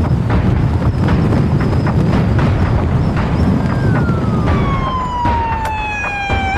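Police siren wailing, starting a little past halfway and sliding steadily down in pitch. Under it, a heavy rumble of wind buffeting the microphone and vehicle noise from a fast-moving patrol truck, with scattered knocks.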